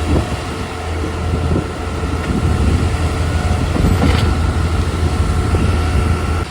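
Diesel engine of a concrete pump truck running steadily under load, a loud low drone with scattered rattles and knocks over it.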